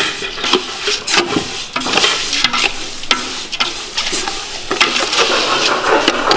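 A metal ladle stirring and scraping wet granulated sugar around the bottom of a large metal pot in quick, repeated strokes, while the sugar is only starting to dissolve into the water for a syrup.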